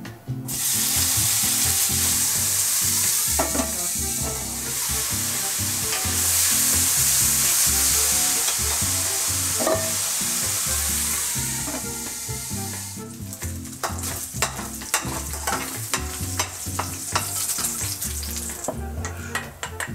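Chopped bacon frying in a hot, dry stainless steel pan: a loud, even sizzle that starts suddenly about half a second in as the bacon goes into the pan. Later it dies down to a quieter crackle with frequent sharp clicks.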